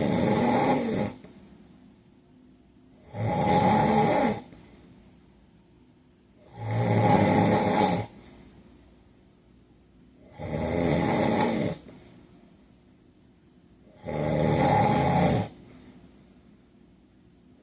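A man snoring loudly in a steady rhythm: five snores, each a little over a second long, coming about every three and a half seconds with quiet breathing gaps between them.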